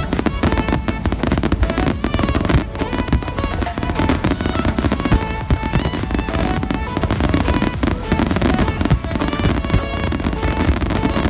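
Fireworks going off in rapid succession, a dense run of bangs and crackling, with music playing at the same time.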